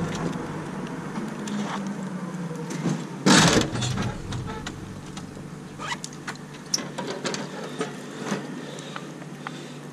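Riding noise from a bicycle heard through a GoPro mounted on it: scattered rattles and clicks over a steady low hum, with a louder rush about three and a half seconds in.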